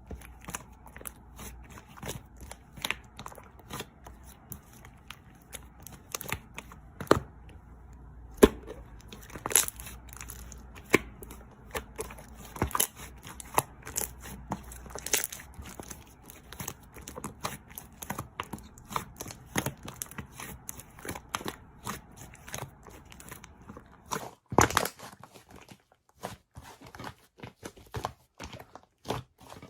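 Slime being squeezed and kneaded by hand, giving a dense run of irregular crackles and pops.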